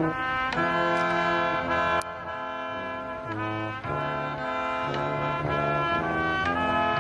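Brass band playing a tune: sustained chords with a low bass line stepping from note to note beneath them.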